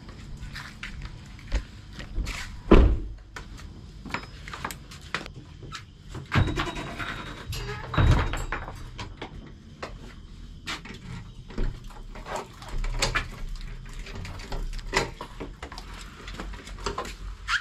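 A scattered run of knocks, thumps and rustles from people moving about in a small room, the loudest thumps about three and eight seconds in. A door opens near the end.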